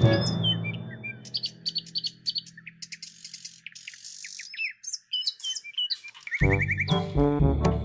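Short, high bird-like chirps and tweets, some sweeping quickly down in pitch, with a fast trill about six seconds in. The background music dies away early on and returns loudly near the end.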